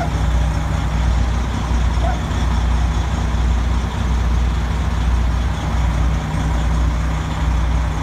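Semi truck's diesel engine idling, a steady low rumble.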